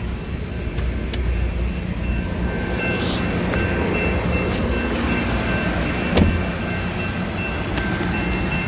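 Loram rail grinder working the rails: a loud, steady diesel rumble under a grinding hiss, with high ringing tones that come and go. One sharp crack about six seconds in.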